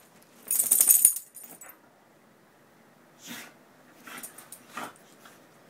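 Two dogs play-wrestling on a bed: short bursts of scuffling on the duvet mixed with dog noises. The loudest burst comes about half a second in, with weaker ones near three, four and five seconds.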